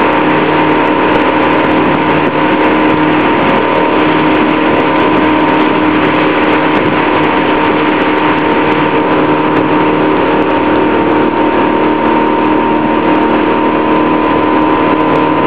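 Motorboat engine running steadily at towing speed, with water rushing in the wake.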